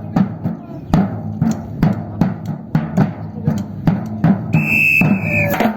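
Batucada percussion ensemble playing a steady, driving beat: deep bass drums with snare and other drums hit in a regular rhythm. Near the end a whistle sounds one long steady note for about a second.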